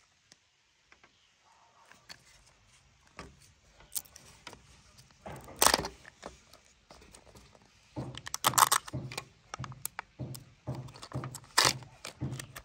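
Kinder Joy egg packaging being handled: irregular crinkling, rustling and small plastic clicks, with one louder crackle a little before the middle and a busier run of them in the second half.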